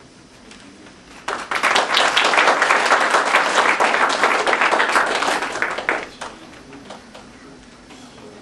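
Small audience applauding: the clapping starts about a second in, holds for about five seconds and dies away with a few scattered claps.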